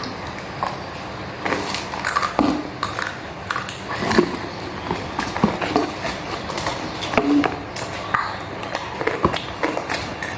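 Eating sounds: food being bitten and chewed, with many short clicks and taps scattered through.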